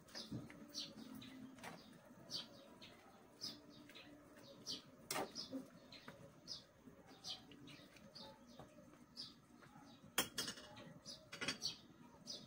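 A bird chirping over and over, short falling high notes about once a second, with a few sharp knocks, the loudest about ten seconds in.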